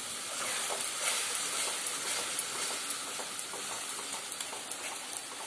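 Curry masala sizzling in a metal kadai while a metal spatula stirs and scrapes through it, with irregular clicks and knocks of the spatula against the pan.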